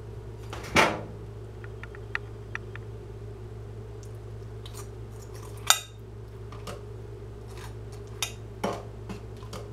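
Table knife spreading mayonnaise on pizza slices, with a few sharp clinks and taps of the knife against the plate, the loudest about a second in and near the middle, over a steady low hum.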